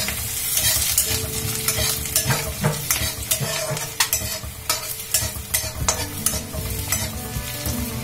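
Cumin seeds and chopped green chillies sizzling in hot oil and butter in a metal kadai, with a spatula scraping and tapping against the pan as it stirs, in short sharp strokes at irregular intervals.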